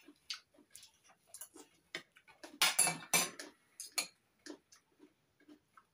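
Knife, fork and spoon clinking against china plates and bowls in short, irregular clicks, with a louder, denser run of clatter about two and a half to three and a half seconds in.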